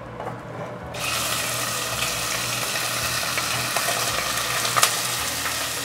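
Raw chicken thigh pieces going into hot oil in an enameled cast-iron Dutch oven, starting to sizzle suddenly about a second in and then sizzling steadily. There is a single sharp tap a little before the end.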